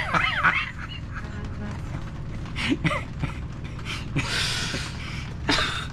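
A woman and a man laughing hard. Wavering laughter in the first moment gives way to breathless gasps and wheezy bursts of air.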